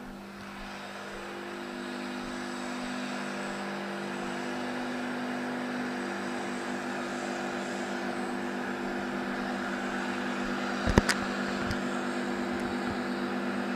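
A steady engine drone that holds one pitch and slowly grows louder. About eleven seconds in there is one loud sharp crack, followed by two fainter ones.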